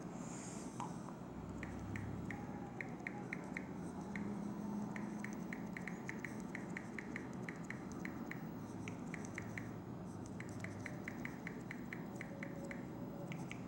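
Quick, irregular clicks of a phone's on-screen keyboard as a message is typed, coming in runs of several taps with short pauses between them.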